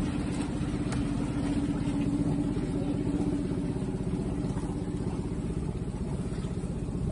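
A canal boat's engine running steadily, a low even note with a fast regular beat.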